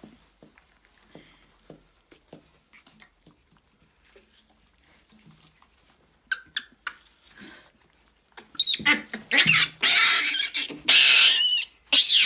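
Baby macaques tussling: faint scuffles and taps at first, then, about two-thirds in, loud, high-pitched screaming and squealing in repeated cries that waver in pitch.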